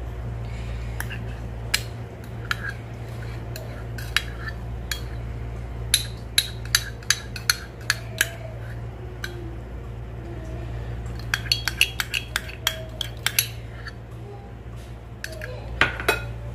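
Metal spoons clinking and scraping against a metal pan and a small cup as condensed milk is spooned into the payasam and stirred in. The sharp taps come in bursts: a run of about two a second some six seconds in, a quicker cluster past eleven seconds, and two more near the end. A steady low hum runs underneath.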